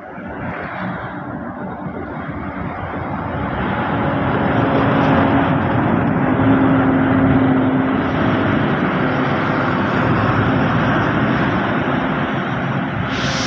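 Diesel engine of a Hino coach droning as it approaches and passes close by, building over the first few seconds and staying loud, with truck engines following behind.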